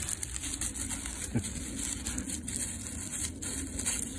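Dry fallen leaves rustling and crackling as a dog noses and paws through them after a pine cone, over a steady low rumble.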